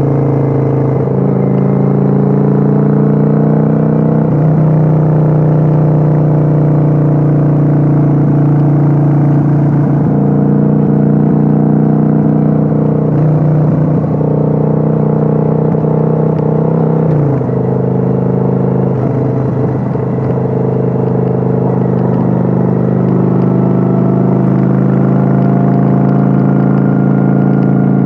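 Kawasaki Vulcan 900's V-twin engine running under way on the highway, recorded on board. Its note holds steady for stretches, then steps up or down in pitch about five times with throttle or gear changes, with a clear drop a little past halfway.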